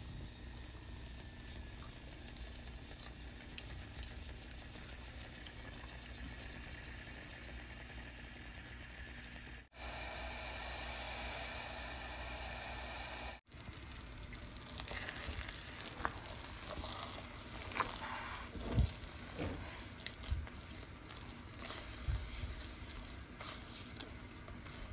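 Thick glutinous rice, coconut milk and brown sugar mixture bubbling in an aluminium pot, then a wooden spoon stirring it, with irregular scrapes and knocks against the pot in the second half.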